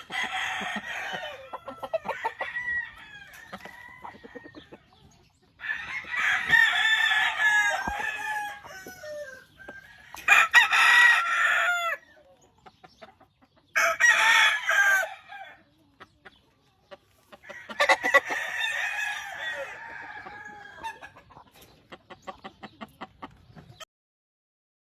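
Gamefowl roosters crowing one after another, about five loud crows each lasting one to three seconds, with quieter clucking and scratching between them.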